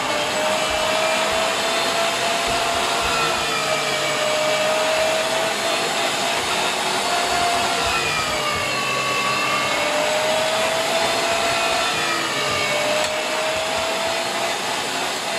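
Electric meat grinder running steadily as it minces garlic cloves through the fine plate, its motor whine wavering slightly in pitch.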